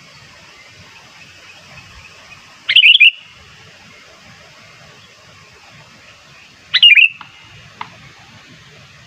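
Sooty-headed bulbul (kutilang) calling: two short, loud bubbling call phrases about four seconds apart, the second followed by a faint single chirp, over a steady high hiss.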